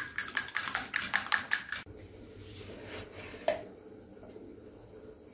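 Metal fork beating eggs in a bowl: a quick run of clinks, about six strokes a second, stopping after about two seconds. One more single clink about three and a half seconds in.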